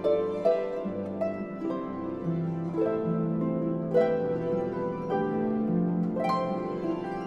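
Harp music: plucked strings ringing in chords over a lower bass line, with new notes struck about once a second.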